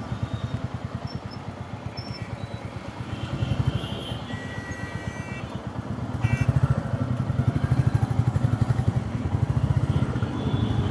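Motorcycle engine running with a fast low pulse, easing off for a few seconds and then pulling harder and louder from about six and a half seconds in, as the bike comes through a U-turn.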